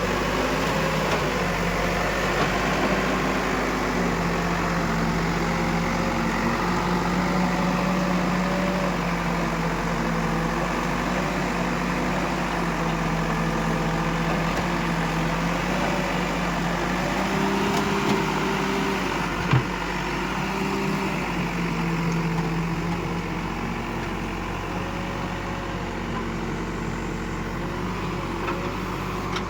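Diesel engine of an Escorts Digmax backhoe loader working, its pitch repeatedly rising and falling as the load changes, with one sharp knock about twenty seconds in.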